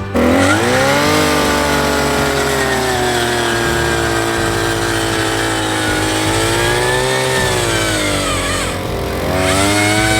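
Small gasoline engine revving up sharply at the start and held at high revs, its pitch sagging and rising a little, then dropping briefly near the end before revving up again.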